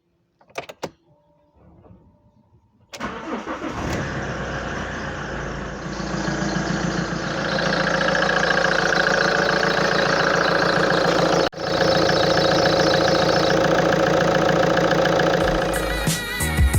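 A few clicks, then an Alfa Romeo 156 engine starts about three seconds in and runs with its accessory drive belt squealing steadily. The sound breaks off for an instant past the middle. The squeal comes from an automatic tensioner that has lost its position and pushes the aging belt sideways.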